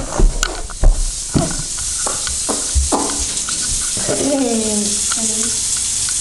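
Running water hissing steadily into a bathtub while a wet dog is washed, with a few handling thumps in the first second or so and a brief falling vocal sound about four seconds in.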